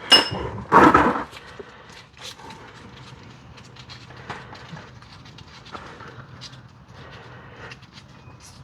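Wrench breaking loose the plug on a BMW E46 differential, with two loud clunks in the first second, followed by light scattered clicks and scrapes as the plug is worked out.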